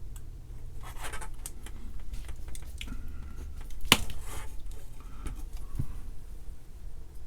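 Small clicks and scratches of a capacitor being handled and fitted into a circuit board, with one sharp click about four seconds in, over a low steady hum.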